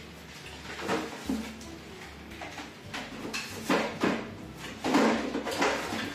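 Kitchen freezer being opened and shut, with several knocks of packaged frozen food being put in. The knocks are loudest about five seconds in.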